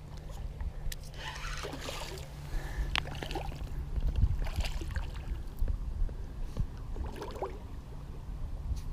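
Wind buffeting the microphone as a steady low rumble, with scattered small clicks and scrapes of handled fishing gear.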